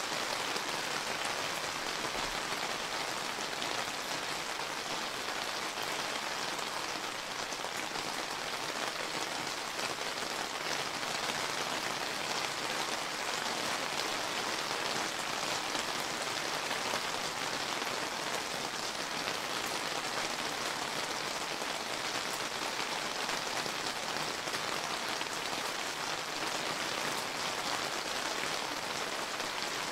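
Steady rain falling and pattering on surfaces, an even hiss of many drops with no lulls.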